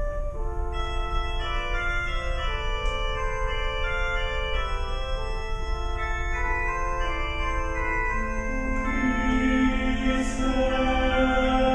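Organ playing slow, sustained chords that change every second or so. A low held note enters about eight seconds in and the sound grows louder.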